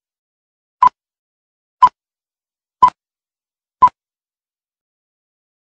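Film-leader countdown beeps: short, identical electronic beeps, one a second, four in all, ending about four seconds in.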